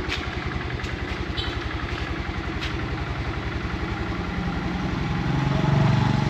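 Honda Air Blade motor scooter's small single-cylinder engine idling with a steady fast putter, its revs rising briefly near the end.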